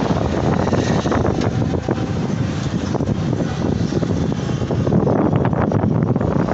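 Steady vehicle and road noise heard from inside an open-sided vehicle moving along a highway, with wind buffeting the microphone in crackling gusts that get thicker near the end.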